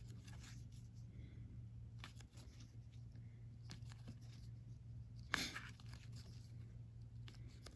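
2020 Panini Absolute football cards being flipped through by hand: faint sliding and light taps of card on card, with one louder swish about five seconds in, over a low steady hum.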